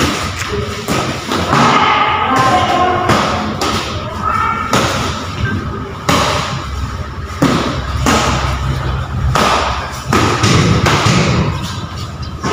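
Repeated thuds of kicks and boxing-glove punches landing on padded chest protectors during sparring, about one every second, some in quick pairs.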